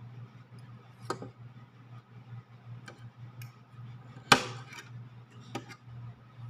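Metal spoon and fork clinking against a metal pot of instant noodles: four sharp clinks, the loudest about four seconds in, over a low steady hum.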